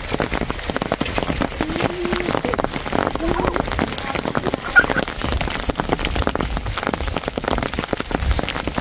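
Hailstones and rain falling, a dense patter of countless small hits, with one sharper knock about five seconds in.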